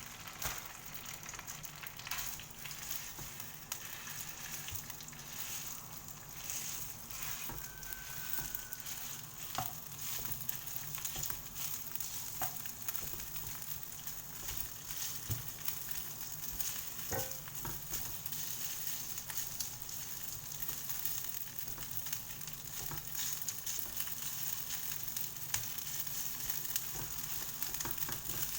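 Rice sizzling in hot oil in a frying pan while being stirred, a steady hiss with scattered light clicks of the utensil against the pan.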